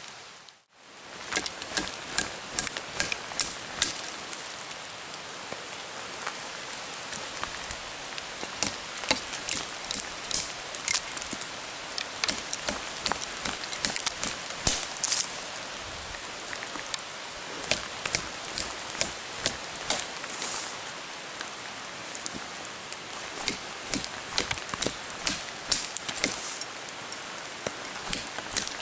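Rain falling in a forest: a steady hiss with many irregular sharp drip ticks of drops landing close by.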